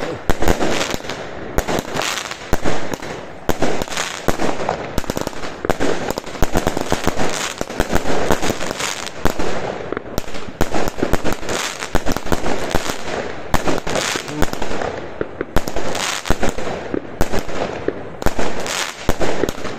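Fireworks and firecrackers going off: a rapid, uneven stream of bangs and crackles, many a second, with a few brief lulls.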